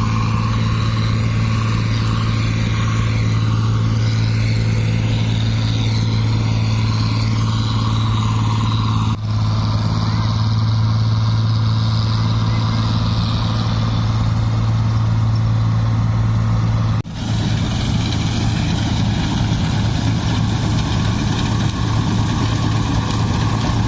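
Combine harvester running steadily at working speed while cutting wheat, a loud continuous engine drone with a low hum. The sound breaks off briefly twice, once about nine seconds in and again about seventeen seconds in.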